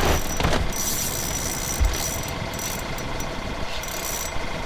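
Steady mechanical hum with a faint whine, with a couple of light knocks near the start.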